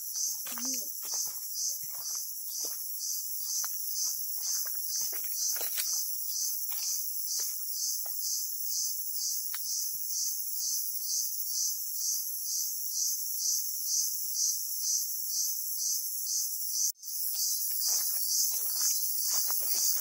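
Chorus of crickets in dense forest, a steady high-pitched trill that pulses about twice a second. Faint steps and rustles on the trail come through underneath in the first half and near the end.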